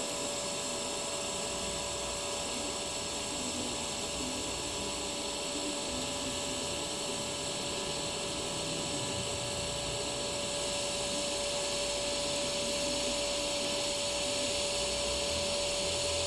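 TIG welding arc on an inverter welder, started by lift-arc, burning steadily: an even hiss with a constant hum-like tone underneath. The arc is very stable.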